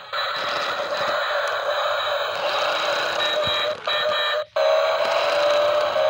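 Toy remote-control jeep's small electric motor and plastic gearbox whirring with a steady high whine, cutting out briefly twice a little before two-thirds of the way in.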